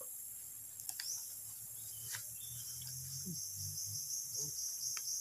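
Insects chirping in a steady, high-pitched chorus, joined about a second in by a pulsing chirp that repeats about three times a second. A few faint clicks sound over it.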